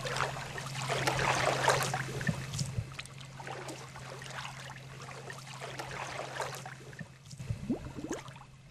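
Shallow river water splashing and trickling in uneven bursts, over a low steady hum.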